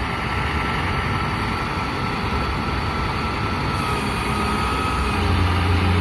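Tow truck's engine idling steadily, with a faint steady whine above it and a deeper drone that comes in about five seconds in.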